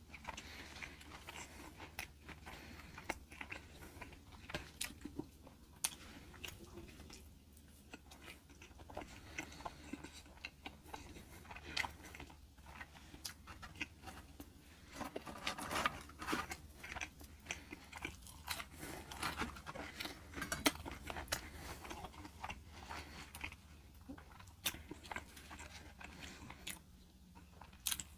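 Close-miked chewing and crunching of fried fast food, with irregular crisp bites and chews, busiest about halfway through, over a steady low hum.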